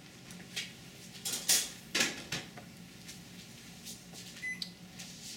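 Household kitchen knocks and clunks, the two loudest about a second and a half and two seconds in, with a short electronic beep near the end.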